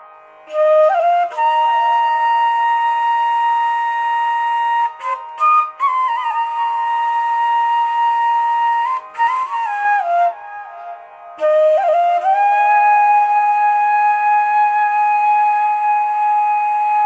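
Slow solo flute melody laid over the pictures as background music: long held notes with short gliding ornaments between them, and a brief pause about ten seconds in.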